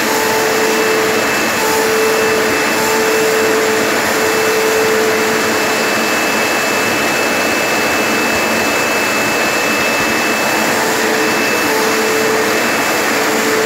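Household vacuum cleaner running steadily with a constant whine, its hose fitted with a grooming comb being drawn through a Siberian husky's coat to suck up shed fur as it brushes.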